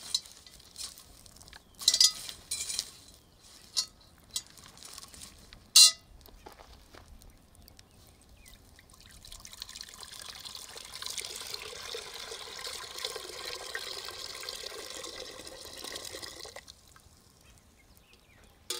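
Water poured in a steady stream into an empty cast-iron pot on a wood fire, running for about seven seconds from about halfway in and stopping suddenly. Before it come a few sharp knocks and clanks, some with a short metallic ring.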